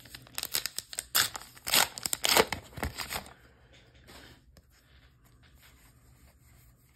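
A foil trading-card booster pack wrapper being torn open and crinkled, with loud crackling rips for about three seconds. After that there is only faint rustling as the cards are handled.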